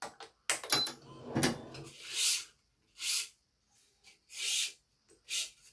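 A badminton racket being strung with Yonex BG80 string: a few clicks and knocks, then four short swishes of string being drawn through the frame, each about half a second long and roughly a second apart.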